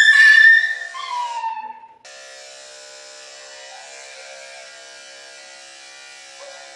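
Schnauzer puppy letting out loud, high, falling howling cries for the first second and a half. From about two seconds in, electric dog grooming clippers buzz steadily.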